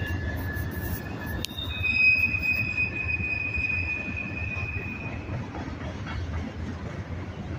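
Freight train cars rolling past, a low rumble with high, steady wheel squeal over it. The squeal jumps to a higher pitch after a sharp click about a second and a half in, then fades out a few seconds later.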